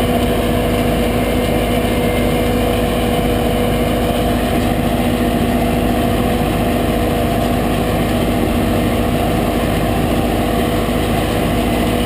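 Farm tractor engines and a tractor-pulled harvester with its conveyor running steadily, a constant mechanical hum that holds one pitch and level throughout.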